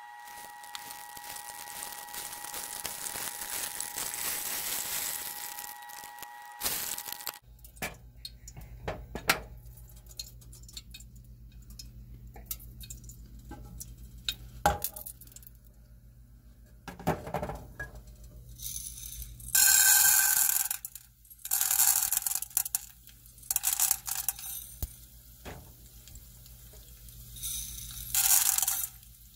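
Glass saucepan lid clinking against the pan as it is shifted and lifted off, and hot oil sizzling around popcorn kernels in the pan, in several short bursts in the second half.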